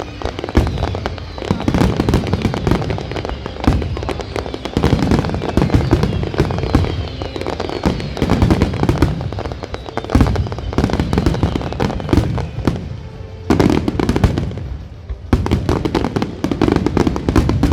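Fireworks display in a dense finale barrage: rapid overlapping bangs and crackling with a deep rumble, easing off briefly about three-quarters of the way through before building again.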